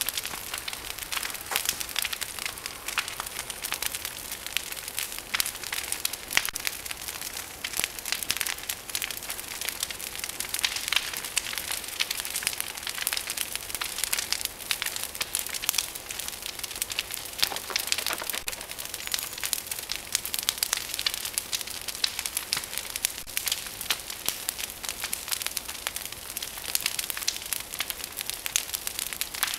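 Bonfire of piled branches burning, crackling steadily with many irregular sharp pops.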